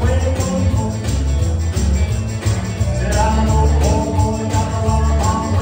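Live band playing a rockabilly song: electric guitar and a strong repeating bass line over a steady beat. Singing comes in about three seconds in and again near the end.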